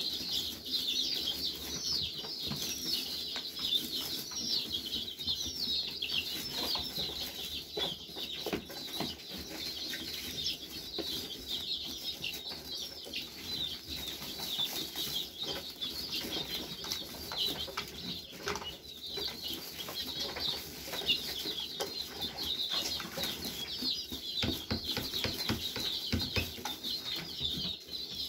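A brood of young chicks peeping continuously, many short downward-falling chirps overlapping several times a second, with light rustling and pecking in straw underneath.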